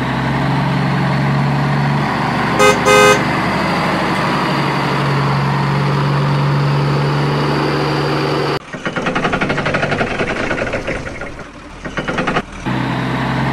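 A truck engine sound running steadily, with two short horn honks about three seconds in. From about nine to twelve and a half seconds the engine gives way to a fast rattling sound, then the engine resumes.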